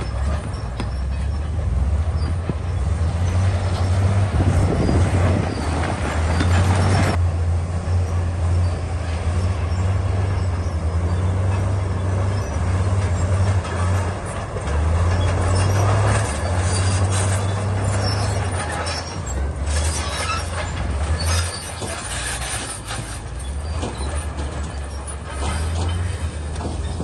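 Crawler bulldozer's diesel engine running under load, with the steel tracks and blade clanking and grinding over rock.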